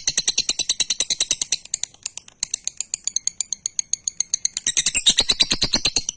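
Lovebird doing a long ngekek: a rapid chattering trill of about a dozen sharp notes a second. It eases off about two seconds in and grows loud again near the end. This long, near-unbroken ngekek is what keepers call 'semi konslet'.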